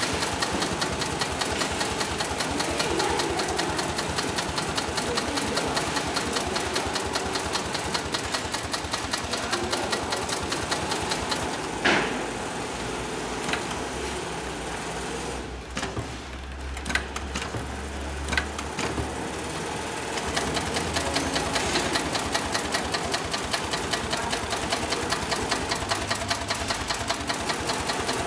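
Heavy-duty long-arm zigzag sail-making sewing machine (9366HM) stitching a zigzag seam through thick layered fabric, its needle strokes coming fast and even. About eleven seconds in it stops for several seconds, leaving a few sharp clicks and a low hum, then starts stitching again near twenty seconds.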